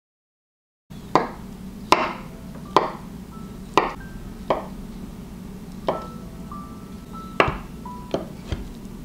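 A chef's knife cuts through hard-boiled eggs and knocks against a wooden cutting board, about nine sharp chops at uneven intervals, starting about a second in. Soft background music with light pinging notes plays under the chops.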